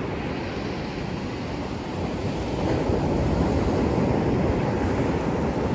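Ocean surf breaking and washing up the beach as a steady rush, swelling a little about two seconds in.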